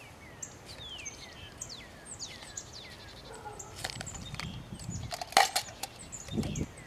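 Birds calling, with many short whistles that slide downward in pitch. About four and five seconds in come a few sharp clicks and knocks as a small metal pail and plastic scoop are handled; the one near five seconds is the loudest.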